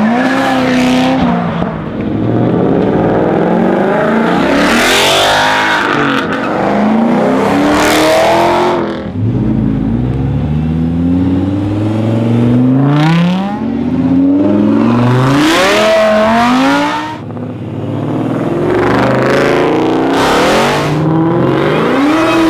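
A string of sports and exotic cars, among them an Audi R8, accelerating hard past one after another, about half a dozen passes. Each engine revs up, rising in pitch, then drops at a gear change.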